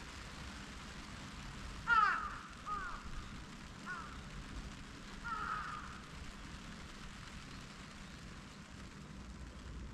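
A crow cawing four times in short calls between about two and six seconds in, over a steady low hum of distant city traffic.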